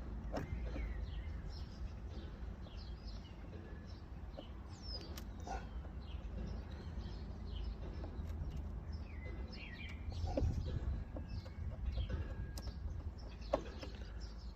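Small birds chirping and twittering on and off, many short quick calls, over a steady low rumble; a single sharp click comes near the end.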